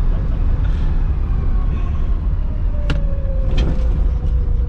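Old car driving hard, heard from inside the cabin: a loud, steady low engine and road rumble. A faint whine slides slightly lower in the second half, and there is one sharp click about three seconds in.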